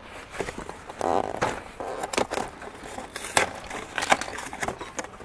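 Irregular clicks, knocks and crinkling as tools and plastic are handled on pavement.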